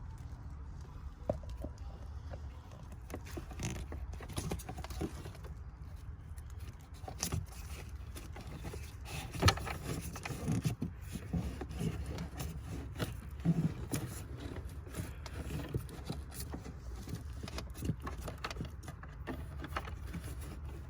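A new cabin air filter being slid into its plastic housing behind the glove box: scattered scraping and light clicks of plastic on plastic, with one sharper knock about halfway through, over a low steady hum.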